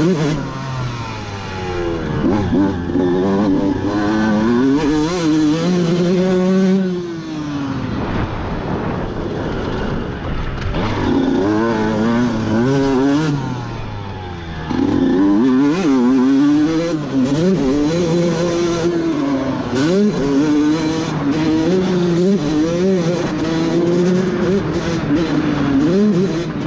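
Two-stroke Honda CR motocross bike engine revving hard under a rider, its pitch climbing and falling repeatedly as the throttle is worked. The throttle eases off about seven seconds in and again around fourteen seconds in before the engine picks up again.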